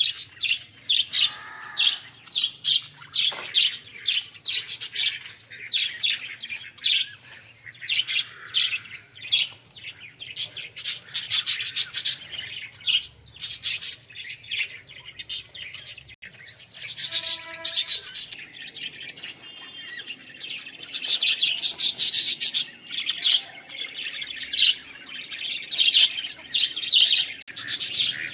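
A flock of pet budgerigars (Australian parrots) chattering and chirping continuously in rapid, overlapping high-pitched chirps, with a short lower-pitched call about midway.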